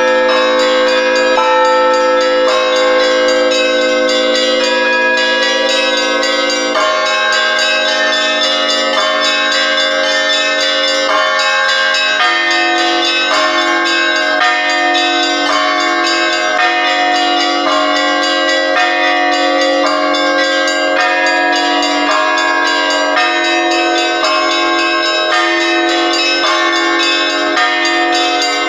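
Russian Orthodox church bells rung by hand, many bells at once (trezvon), struck in a repeating rhythm over the sustained ringing of the larger bells. The pattern of the lower bells changes about twelve seconds in.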